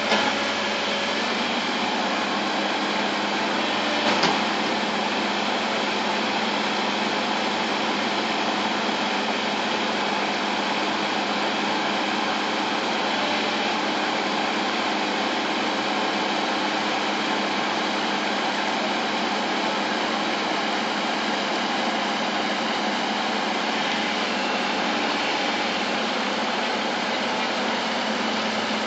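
Bulldozer's diesel engine running steadily, with one brief knock about four seconds in.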